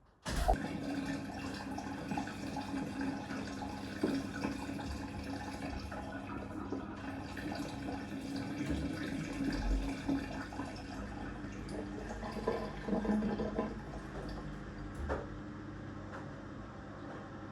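Samsung WW6800 front-loading washing machine taking in water: the fill starts abruptly just after the start and runs on as a steady rush of water with a low hum and a few knocks.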